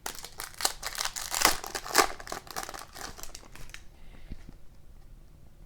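Foil hockey card pack wrapper crinkling and tearing open in rapid crackles for about four seconds, then stopping.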